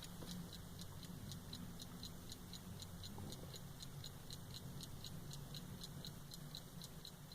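Vintage Ingersoll hand-wound mechanical pocket watch ticking faintly and evenly, about five ticks a second.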